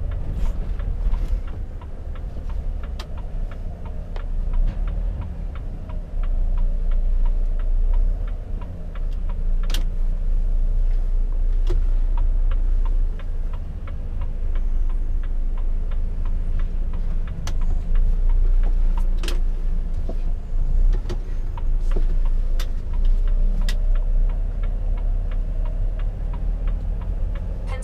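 Volvo FH truck's diesel engine running at low speed, heard from inside the cab as a steady low rumble, with repeated light clicks over it.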